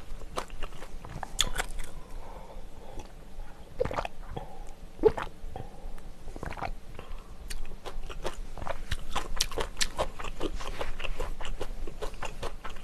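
Close-miked eating sounds: chewing, with many quick wet mouth clicks and crunches.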